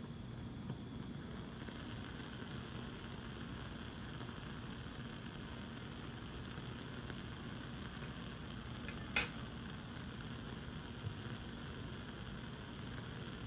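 Steady low rumble and hiss of a lit Bunsen burner's gas flame, with a single sharp click about nine seconds in.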